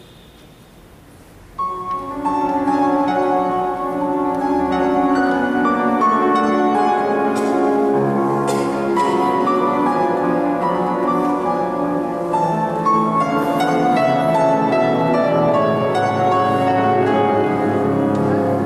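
Solo grand piano playing a fast, flowing piece of many quick notes, which begins about a second and a half in after faint room noise.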